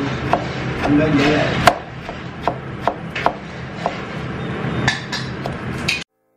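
Chef's knife slicing tomatoes on a plastic cutting board: an irregular knock, about two a second, each time the blade meets the board, with voices in the background. The sound cuts off suddenly near the end.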